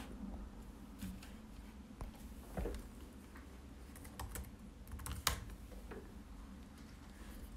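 Typing on a Dell laptop keyboard: irregular, scattered key clicks, the loudest one a little past five seconds in.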